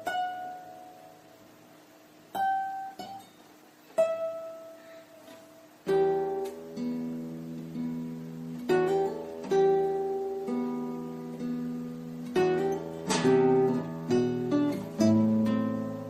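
Calm acoustic guitar music: a few single plucked notes ringing out slowly, then fuller picked chords with low bass notes from about six seconds in.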